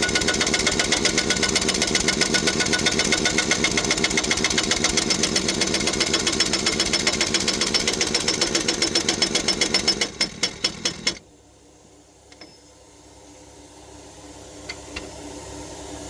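Impact wrench hammering fast and steadily as it runs the new pinion nut down onto the yoke of a truck differential, slowing into a few separate blows and stopping suddenly about eleven seconds in. A few faint clicks follow.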